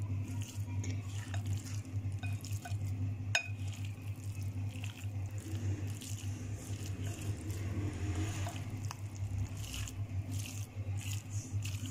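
Silicone spatula stirring and squishing wet raw beef mince with yogurt and spices in a glass bowl: irregular soft wet squelches, with small clicks and scrapes where the spatula meets the glass. A steady low hum runs underneath.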